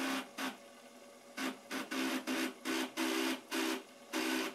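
Drill press bit cutting into the hole of a wooden block, heard as about a dozen short bursts of whirring cut with brief quiet gaps between them.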